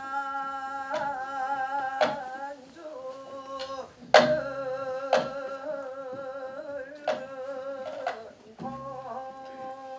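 A Korean folk voice (japga) sings long held notes with a wide, wavering vibrato. Sharp drum strokes fall roughly once a second.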